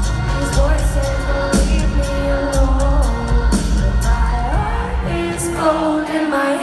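Live pop concert music: a woman singing into a microphone over a heavy electronic bass backing, which drops away near the end.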